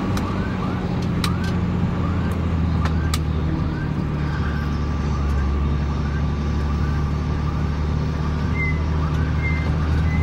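Steady low engine drone of a heavy vehicle, heard inside its cab while driving. A faint rising chirp repeats about twice a second over it, and there are a few sharp clicks in the first few seconds.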